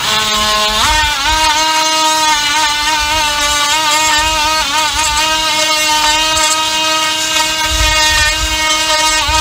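A cordless power saw cutting a notch into a pressure-treated 4x4 post. The motor whine climbs in pitch about a second in, then runs steady and loud, wavering slightly as the blade loads in the wood.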